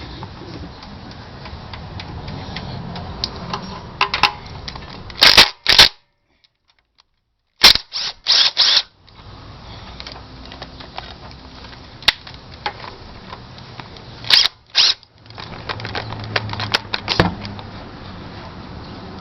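Metal hand tools clicking and clanking against engine parts while bolts come off the front of a V8 during teardown: a run of light ticks with several loud, sharp metallic clacks, some in quick pairs, and a short stretch of dead silence in the middle.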